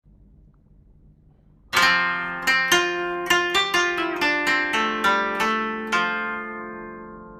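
Background music on a plucked string instrument. After a quiet second and a half, a chord is struck and then a run of single notes follows, each ringing and dying away, fading gently toward the end.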